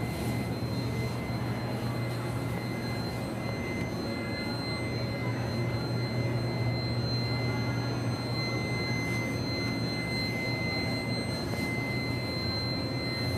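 Steady low hum and din of a large indoor exhibition hall, with a thin high whine held throughout.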